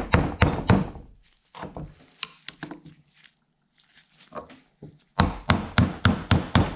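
Hammer driving a brass punch against a rusted sealed bearing in a John Deere mower-deck spindle housing, knocking the stuck bearing out: a quick run of blows at about four a second, a pause with a few lighter taps, then another rapid run of blows near the end.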